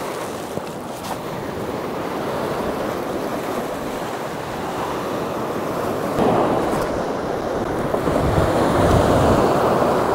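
Sea surf breaking and washing on the shore, with wind buffeting the microphone. A wave surges in about six seconds in and is loudest near the end.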